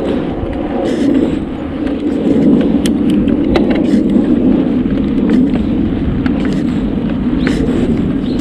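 Steady rushing wind and tyre noise of a bicycle in motion, picked up by a camera mounted on the bike, with scattered light clicks and rattles.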